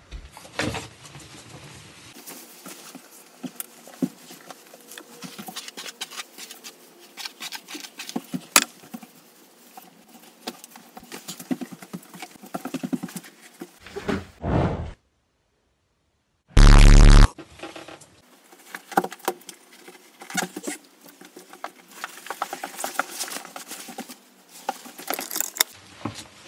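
Clothes rustling, footsteps and small knocks and scrapes as someone moves about a small bedroom, getting dressed and gathering things close to the microphone. The sound drops out for a moment near the middle and is followed by a short, very loud blast.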